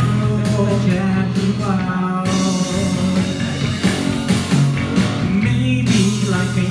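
Live rock band playing: electric guitars, bass and keyboard, with lead vocals sung into a microphone.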